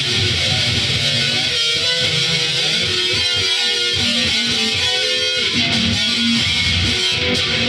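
Electric guitar played continuously, a series of changing single notes and strummed chords stepping up and down in pitch.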